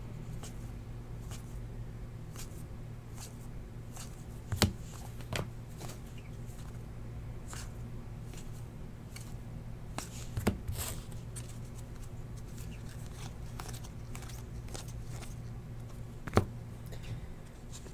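2017 Panini Unparalleled football trading cards being flipped through and slid against one another by hand, with light ticks and three louder clicks about six seconds apart, over a steady low hum.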